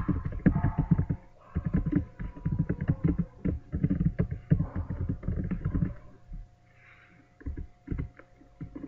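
Typing on a computer keyboard: quick runs of key presses for about six seconds, then only a few scattered key presses near the end.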